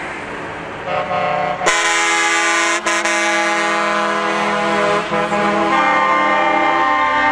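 Truck air horns blowing long, sustained chords over passing truck engines: a first horn sounds about a second in, a louder multi-note chord takes over shortly after, and a higher-pitched chord sounds near the end.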